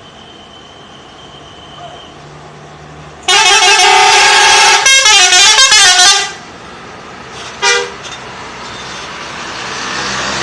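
Bus 'telolet' multi-tone musical air horn. It sounds a loud held chord for about three seconds that breaks into quick changing notes in its second half, then gives one short blast about a second later. A bus engine runs underneath and grows louder near the end.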